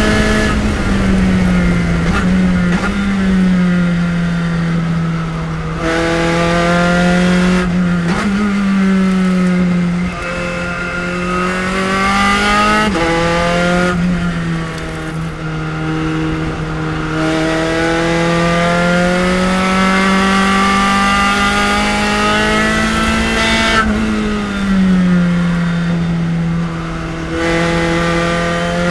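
Spec Racer Ford Gen3's 1.6-litre Ford four-cylinder engine at racing speed. Its note climbs through each gear, drops at every shift and falls away under braking for the corners, over and over.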